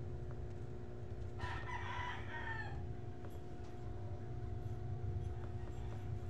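A rooster crows once, a call of just over a second starting about a second and a half in and falling away at the end, over a steady low hum.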